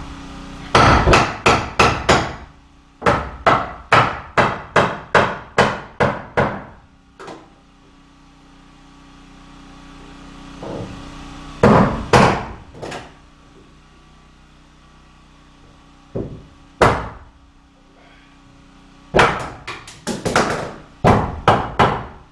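Hammer blows on wooden framing lumber, in runs of quick even strikes at about two or three a second with pauses between runs, as studs are hammered tight into a window opening.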